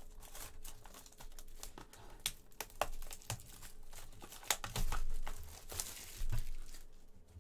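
Crinkling and rustling of a 2020 Score NFL trading card box and its wrapping handled and turned over in the hands, with scattered light taps and clicks.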